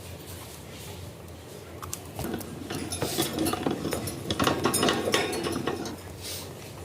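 Rapid small clicks and clinks of hard objects with some rustling, starting about two seconds in and lasting about four seconds.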